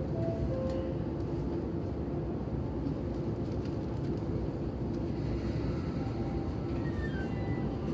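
JR East E231-series electric train motor car pulling away from a station, heard from inside the car: a steady running rumble, with the Mitsubishi IGBT VVVF inverter's tones rising in pitch in the last couple of seconds. On acceleration this car sounds like an ordinary E231; its abnormal gear noise comes only when braking.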